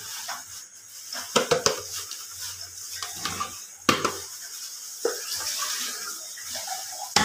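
Thick blended onion-and-garlic paste sliding and plopping out of a blender jar into an aluminium pot of raw meat. Several knocks come from the jar against the pot and the hand slapping the jar to empty it: a cluster a little over a second in, a sharp one about four seconds in, and another at the end.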